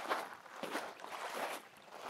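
Footsteps crunching in black volcanic sand, about two steps a second.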